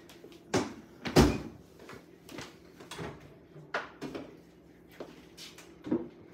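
Kitchen clatter of cookware being handled on a counter: about six separate knocks and clunks, the loudest about a second in.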